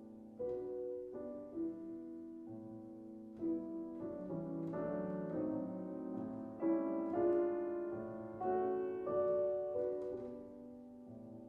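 Solo piano playing a slow classical piece: single notes and chords struck every half second or so and left ringing over one another, swelling louder around the middle.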